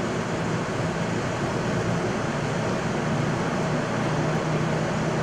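Flight-deck noise of an Airbus A220 on its takeoff roll, its Pratt & Whitney PW1500G geared turbofans at takeoff thrust: a steady, even noise with a low hum, growing slightly louder as the aircraft accelerates toward V1.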